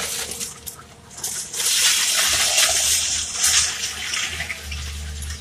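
Dry branches crackling and rushing as an excavator's wood grapple swings its bundle onto a brush pile, with the excavator's engine humming low underneath.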